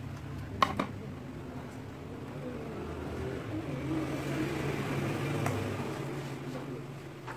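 A metal spoon clinks twice against a metal bowl while scooping rice, just under a second in. Under it runs a steady low hum that swells for a few seconds midway.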